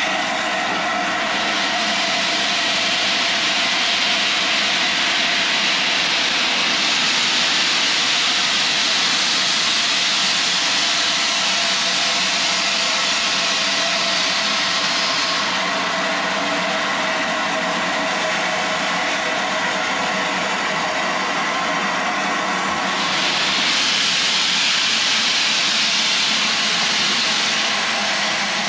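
Steam locomotive Sir Nigel Gresley, an LNER A4 Pacific, standing and hissing steam in a loud, steady rush that swells and eases a few times, with no exhaust beat.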